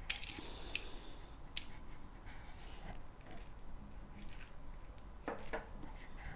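Spatula and spoon tossing a moist grated carrot, cabbage and apple salad dressed with yogurt in a ceramic bowl: soft wet squishing, with a few light clicks of the utensils against the bowl in the first two seconds.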